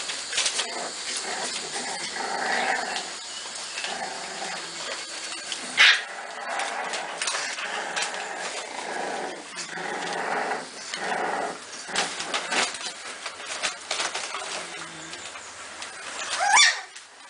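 American Staffordshire terrier puppies whimpering and squealing, with newspaper bedding crackling as they move about. There is a louder short cry about six seconds in and a high cry falling in pitch near the end.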